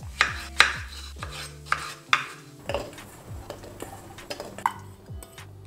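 A kitchen knife chops strawberries on a wooden cutting board, making a run of sharp knocks spaced about half a second to a second apart. Near the end, the cut pieces are tipped off the board into a glass measuring jug.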